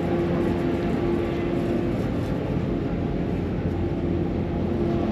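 Engine running steadily, a constant low rumble with a held hum that eases slightly about two seconds in.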